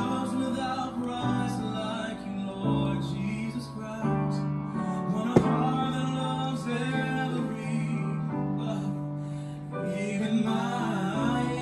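Gospel song playing: piano or keyboard chords under a sung melody. A sharp click sounds about five seconds in.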